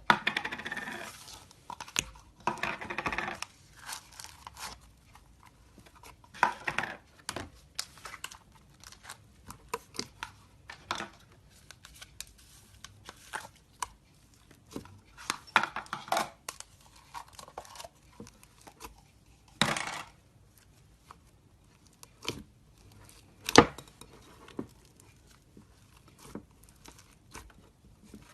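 Slime being poked and squeezed by hand: irregular sticky crackles, clicks and pops, with a few longer crackling stretches.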